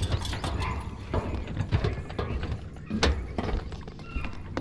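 Footsteps on a wooden dock: irregular knocks and clicks, with one sharper click about three seconds in, over a steady low rumble.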